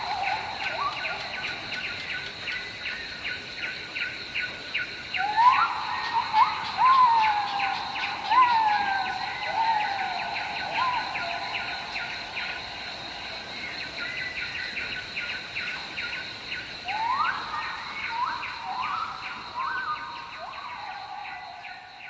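Tropical forest ambience: insects give a steady high drone and a fast, even pulsing chorus. Over them, two series of loud whistled calls each open with a sharp upward sweep followed by several falling glides.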